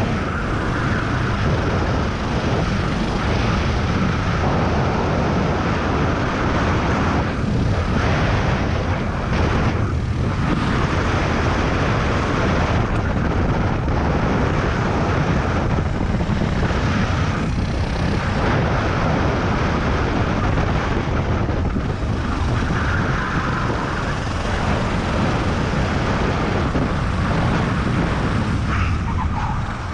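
Racing kart engine running at speed, heard onboard with heavy wind rush over the microphone. The engine note eases off briefly a few times, as for corners.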